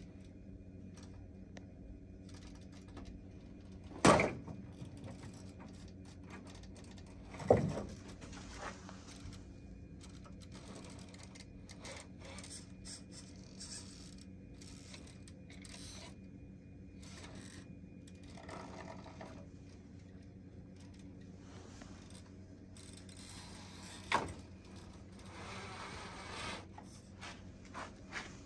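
Axial SCX10 III RC crawler's electric motor and gears whirring quietly as it crawls over rocks. Three sharp knocks as it bumps on the rocks: about four seconds in, around seven and a half seconds, and near the end.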